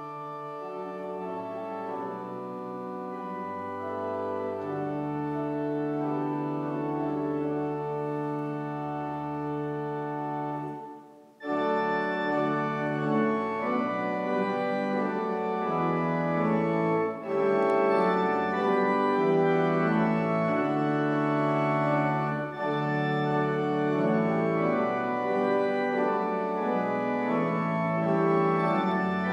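Church organ playing a hymn in held, changing chords, one verse ending about eleven seconds in with a brief break before the next verse starts, slightly louder.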